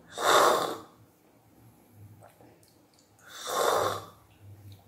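A person slurping coffee from a small cup: two short, noisy slurps about three seconds apart.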